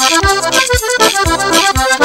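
Traditional Rodrigues island music led by accordion, playing chords over a steady low beat about twice a second.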